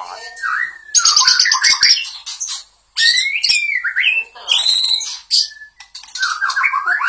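White-rumped shama (murai batu) singing loudly: rapid harsh chattering phrases alternating with clear whistled notes that glide up and down, with a brief pause about three seconds in.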